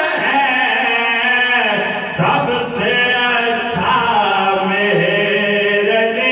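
Two men singing an Urdu devotional naat (kalam) in unaccompanied, chant-like style into microphones, holding long notes that bend up and down.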